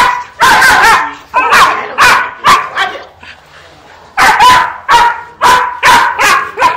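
Young dog barking in quick, loud runs of sharp barks, about ten in all, with a short pause a little past the middle: barking in drive at a tug while held back on a harness and leash.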